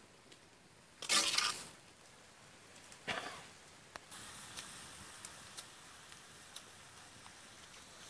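An iron ladle scraping and stirring in a large iron wok, twice, then a steady sizzling hiss of frying goat blood and meat with scattered small pops from about four seconds in.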